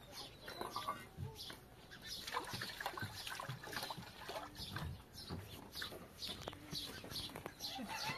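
Chickens clucking, with a steady run of short, high chirps repeating several times a second.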